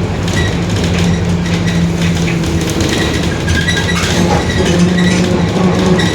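Mercedes-Benz OF-1721 BlueTec 5 city bus under way: steady diesel engine drone with a whining tone from the rear differential, which is droning loudly.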